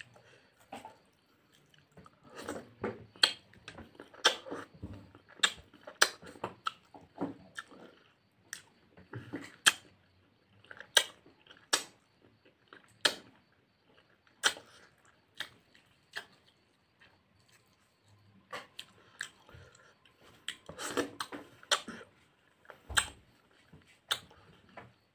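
A man chewing a mouthful of rice and meat with wet, smacking lip and mouth clicks, picked up close by a clip-on microphone, in irregular bouts with short pauses between them.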